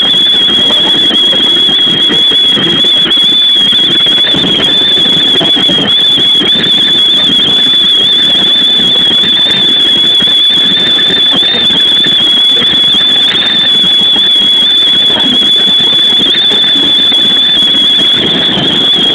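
Loud wind noise rushing past a moving Keikyu New 1000 series train, recorded at the front window, with a steady high-pitched whistle held over it.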